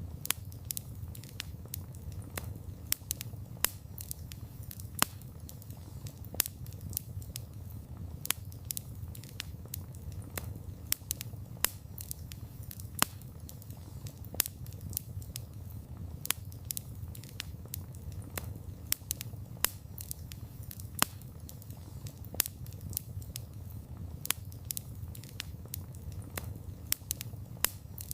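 Wood campfire burning: a low steady rumble of the flames with frequent irregular sharp crackles and pops from the burning wood, a few of them much louder than the rest.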